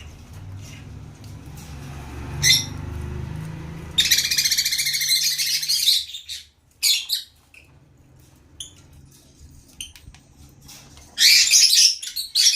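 African lovebirds chattering in shrill bursts: a two-second run of rapid high chirps about four seconds in, short calls after it, and another loud burst near the end. A low rumble sits under the first few seconds.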